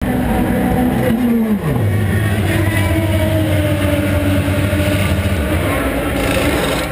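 IndyCar racing engines (Honda V8s) running out of sight on the circuit: one engine note drops in pitch about one and a half seconds in, then a steady low engine note holds, over a continuous engine din.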